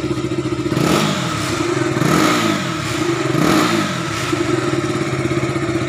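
KTM RC 200's single-cylinder engine idling, its throttle blipped three times, the revs rising and falling back to idle each time.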